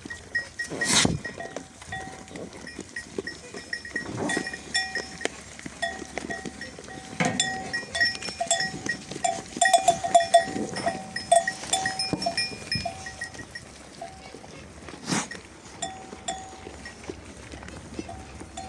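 Bells on a flock of sheep jangling irregularly as the animals move, thickest around the middle. Sheep call now and then, and there are a few sudden louder sounds.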